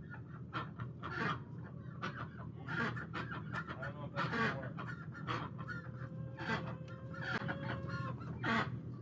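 Chickens clucking and calling, many short calls one after another, with one longer held call in the second half.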